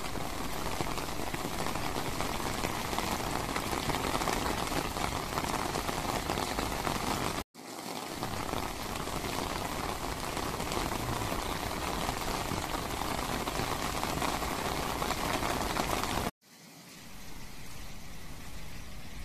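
Heavy rain pouring down in a steady hiss. The sound cuts out abruptly twice and is quieter after the second break.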